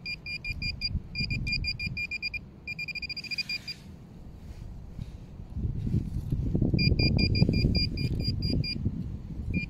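Handheld metal-detecting pinpointer beeping in quick even pulses while probing mulchy soil, signalling metal close to its tip; the beeps come faster about three seconds in, then stop. Near the middle a hand scrapes and rustles through the mulch while the pinpointer beeps again.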